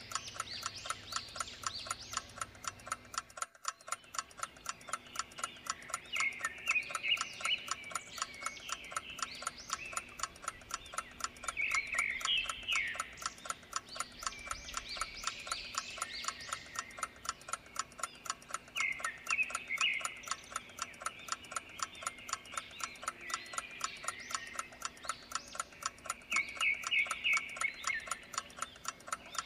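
A clock ticking steadily, with bursts of high chirping animal calls about every six or seven seconds.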